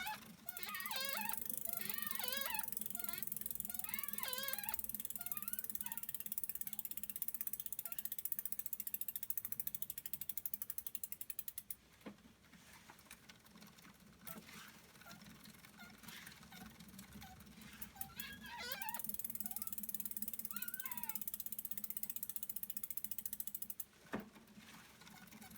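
A rapid, high-pitched mechanical squeak that repeats quickly, like a ratchet. Its pulses slow and it stops about twelve seconds in, then it returns for about five seconds near the end.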